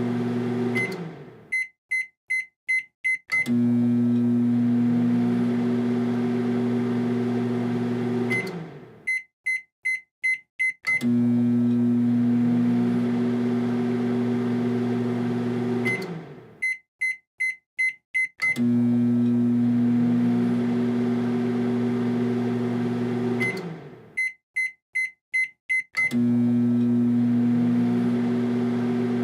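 Microwave oven running with a steady hum. Four times, the hum winds down and stops, the oven gives five quick high beeps, and then it starts humming again.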